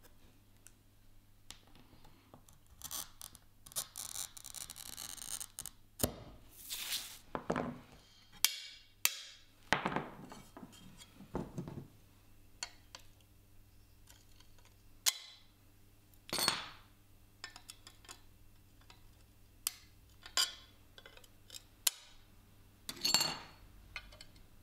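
Glass being cut by hand for a stained-glass window: a glass cutter scores the sheet in short scratchy strokes, with sharp clicks and clinks as the scored glass is handled and broken along the curved cuts with pliers.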